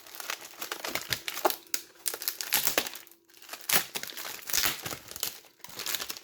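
Packaging material being handled and unwrapped, with irregular crinkling and crackling.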